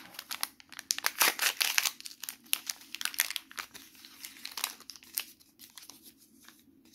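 A small plastic toy packet being torn open and crinkled by hand, in a rapid run of crackles. It is busiest between one and two seconds in and grows sparse toward the end.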